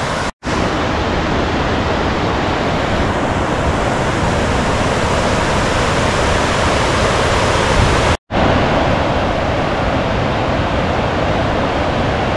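Steady rush of fast-flowing river water. The sound cuts out completely for a split second twice, about half a second in and again about eight seconds in.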